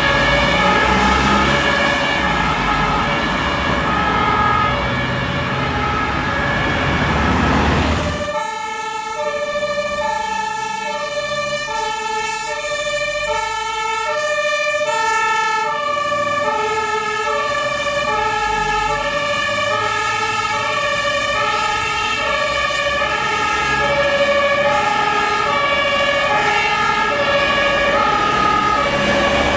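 German two-tone fire siren (Martinshorn) alternating steadily between two pitches, first over the loud low rumble of fire engines pulling away. After a cut about eight seconds in, a cleaner two-tone siren sounds from the breathing-apparatus equipment van as it passes and drives away.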